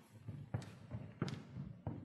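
Slow footsteps on a hard floor: three sharp heel strikes about two-thirds of a second apart.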